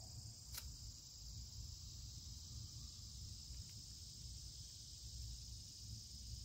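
Steady high-pitched insect chorus over a low rumble, with a single sharp snip of hand pruners cutting a dahlia stem about half a second in.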